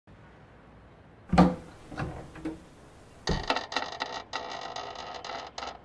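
A heavy wooden picture frame knocks a few times against the wall as it is handled. About three seconds in it swings open with a thump and a grating, rattling scrape that lasts about two seconds, uncovering a hidden wall safe.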